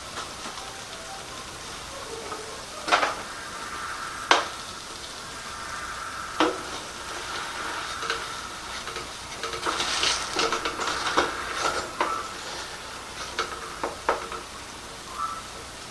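Venison burgers sizzling in a frying pan, with a utensil knocking and scraping against the pan. There are single sharp knocks about 3, 4 and 6 seconds in, and a busier stretch of clinks and scraping from about 10 to 14 seconds in.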